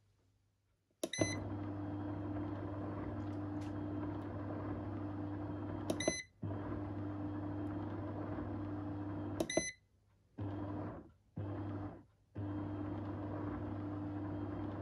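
Turejo foot spa massager: its control panel beeps three times as buttons are pressed, and its motor hums steadily between the beeps. The hum cuts out briefly after the second beep and stops and starts a few times after the third before running steadily again.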